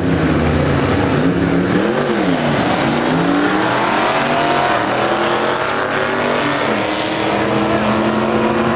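Two vintage hot rod engines revving at the line and then accelerating hard off the start, their engine note climbing as they pull away down the drag strip.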